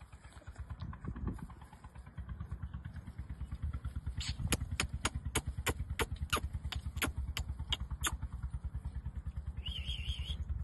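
An engine running at idle with a rapid, steady low pulsing. From about four seconds in comes a run of about a dozen sharp clicks, roughly three a second, and a short warbling high tone sounds near the end.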